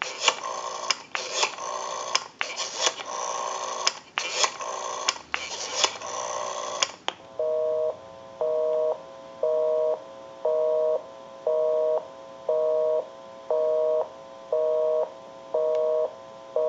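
Western Electric Spacesaver telephone's rotary dial being dialed, heard on the line as a run of clicks and crackle. About seven seconds in, a busy signal starts: a two-tone beep on and off about once a second, because the number called is engaged.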